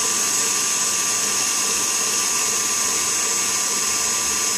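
Heavy-duty stand mixer running steadily, its wire whisk beating still-liquid dairy whipping cream in a steel bowl: an even motor whine over a constant high hiss.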